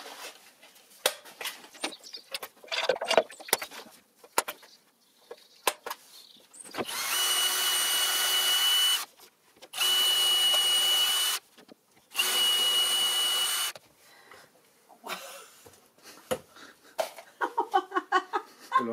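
Cordless drill boring holes into a wooden board, run three times for about two seconds each with short pauses, at a steady speed with a fixed whine. Before it come light taps and scrapes of handwork on the wood.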